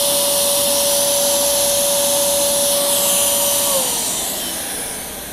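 Electric air pump running in reverse to suck the air out of an inflatable mirror ball, a steady whine with a hiss of air. About three and a half seconds in its pitch drops and it fades as the motor spins down.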